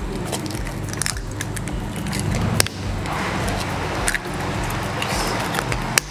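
Chicken eggs being cracked on the rim of a glass bowl: a few sharp clicks of shell, over a steady low background hum.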